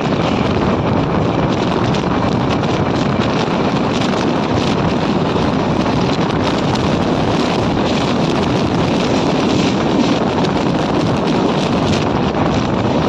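Steady wind rushing over the microphone at the open door of a moving express train, over the running noise of the train on the track.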